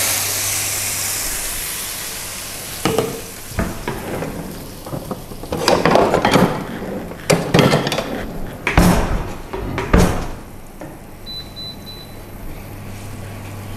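Blended chilli-and-shallot spice paste sizzling and hissing as it hits hot oil in a wok, loudest at first and fading over the first few seconds. Scattered knocks and clatter of utensils against the pan follow.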